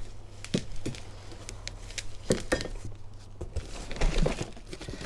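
Packaging being handled while parts are lifted out of a cardboard box: scattered crinkles, clicks and a few light knocks.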